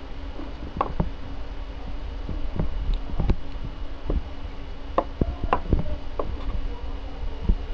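Irregular clicks and light knocks, about ten, as a small plastic SJ4000 action camera is handled, turned over and set down on a wooden table, over a steady low hum.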